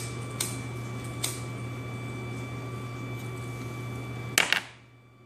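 Cigarette lighter clicking three times in the first second and a half as a cigarette is lit, over a steady low hum. A short burst of handling noise comes about four and a half seconds in, after which the sound drops almost to nothing.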